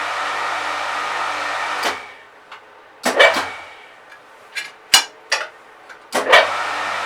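A steady whirring hum that cuts out about two seconds in. A handful of sharp metallic clanks and knocks follow, some ringing briefly, as steel bar is worked in a cold-forging scroll-bending (snail) jig. The hum starts again near the end.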